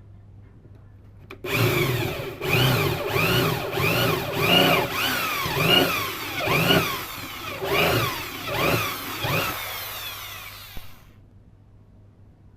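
Electric sewing-machine motor switched on suddenly, its whine surging up and falling back in speed about one and a half times a second, then winding down and stopping near the end.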